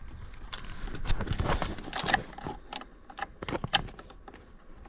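Irregular metallic clicks and taps of a socket wrench and tool handling while removing the screw from the steering column's plastic cover, with a run of quicker clicks about three and a half seconds in.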